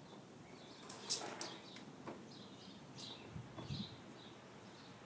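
Small birds chirping faintly and repeatedly, with a few light clicks and knocks.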